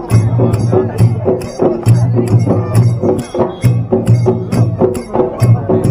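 Traditional folk music with a deep drum pulsing beneath bright, evenly spaced percussion strokes about four a second, playing for a circle dance.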